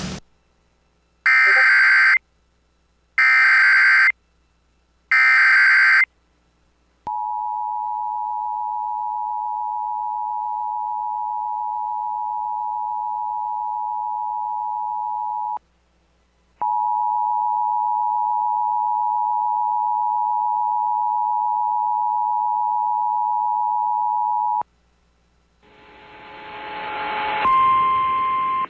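Emergency Alert System broadcast from a Sage ENDEC encoder: three short bursts of warbling SAME digital header data about a second apart, then the two-tone EAS attention signal held steady for about eight seconds. After a one-second break the attention signal sounds again for about eight seconds more. Near the end, the relayed weather-radio audio fades in, with a single higher steady alert tone.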